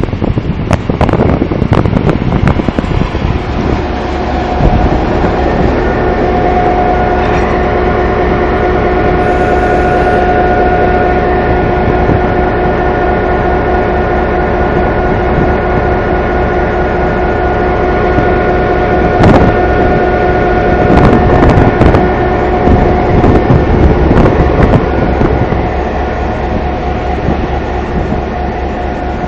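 Freight train passing through a station: steady train running noise with several steady tones held over it, and a few sharp clatters with the loudest moments about two-thirds of the way through.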